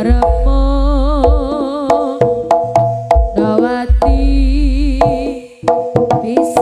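Javanese jaranan ensemble music played loud through a sound system: a wavering melodic lead with strong vibrato over repeated pitched metallic tones, sharp drum strokes and deep low booms.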